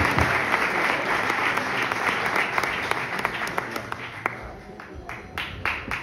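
Audience applauding, a dense patter of clapping that thins out about two-thirds of the way through into scattered single claps.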